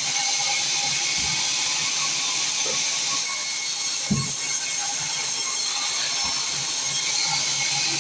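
Small wood sawmill's saw running with a steady hiss, one dull knock about four seconds in.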